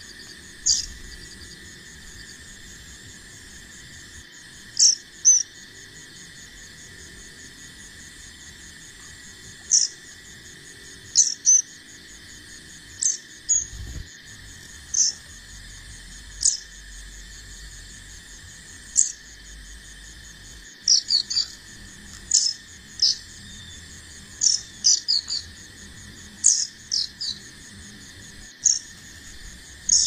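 Short, sharp high chirps from bar-winged prinias, scattered singly and in pairs and coming in quicker clusters in the second half, over a steady, shrill chorus of crickets.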